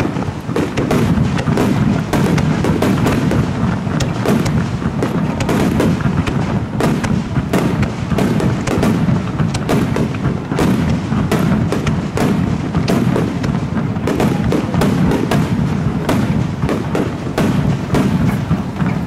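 Aerial firework shells bursting in a dense barrage: booms and crackling overlap with no pause between them.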